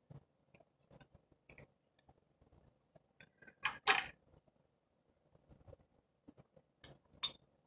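Scattered light clicks and taps of hands working on an opened iPad and its parts, with a pair of sharper clicks about halfway through and two more near the end.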